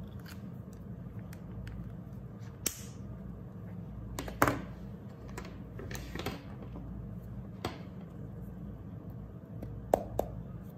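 Plastic caps of Touch Migo dual-tip markers clicked off and on and markers set down on a table: a handful of sharp clicks and taps, the loudest about halfway through and two close together near the end, over a steady low hum.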